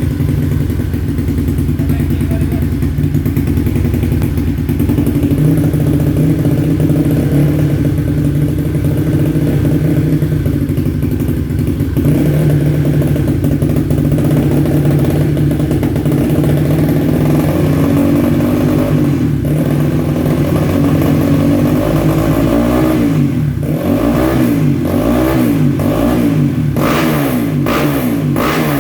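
Bored-up Kawasaki KLX single-cylinder four-stroke dirt bike with a GP7 SRP aftermarket exhaust, idling steadily, then revved in a run of repeated throttle blips over the last several seconds.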